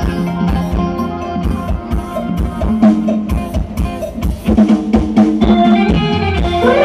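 Isan mor lam band playing an instrumental break, driven by a steady drum-kit beat over held bass notes. A sliding melodic note enters near the end.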